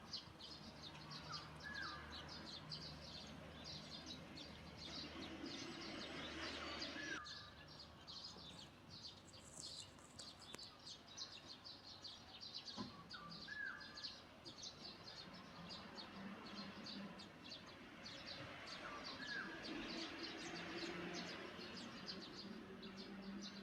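Faint outdoor ambience of birds: dense rapid high chirping throughout, with one short hooked call repeated four times, about every six seconds.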